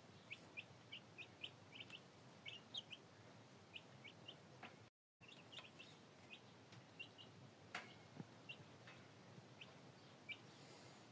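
Faint, rapid peeping of young chicks: short high chirps, several a second, with a brief break in the sound about five seconds in and a single click near eight seconds.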